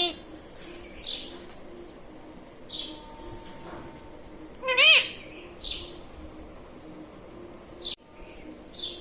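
A ring-necked parrot gives a string of short, sharp chirps and squawks, about six in all. The loudest is an arching squawk about five seconds in.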